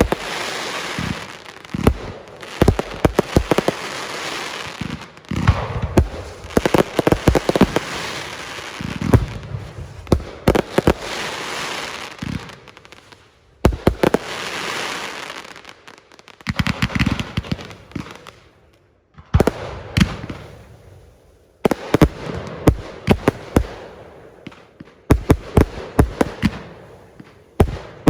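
Fireworks going off in a continuous barrage: rapid bangs and crackling in dense clusters, with short lulls between volleys.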